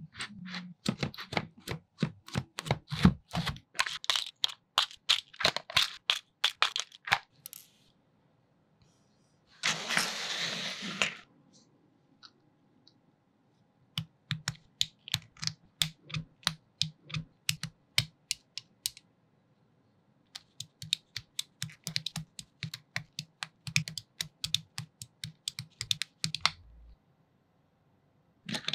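Tweezers and small metal parts of a Toyan V8 model engine kit clicking and tapping as they are picked up and fitted, in quick runs of sharp clicks separated by pauses. A short hiss comes about ten seconds in.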